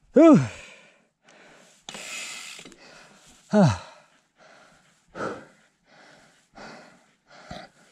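Mountain biker breathing hard while riding a rocky trail, with two loud voiced breaths whose pitch rises and falls, just after the start and about three and a half seconds in, and quieter breaths between.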